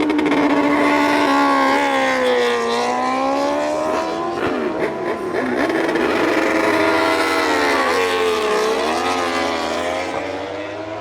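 Several racing motorcycle engines running at high revs, overlapping, their pitch falling and rising as the bikes brake, shift and accelerate, with one deep drop in revs and a climb back up near the end.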